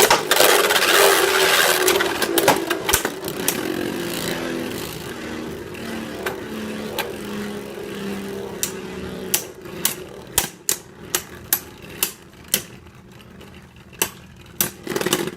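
Two Luinor L2 Beyblade spinning tops whirring in a stadium, the hum loud at first and falling in pitch as they slow, then a run of sharp clacks from about nine seconds in as the slowing tops knock together.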